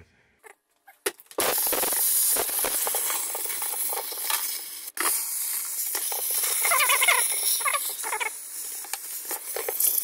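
Handheld steamer jetting steam, a loud steady hiss with some crackling, starting about a second in and breaking off briefly near the midpoint. The steam is melting the ice that holds a refrigerator's frozen evaporator cover in place.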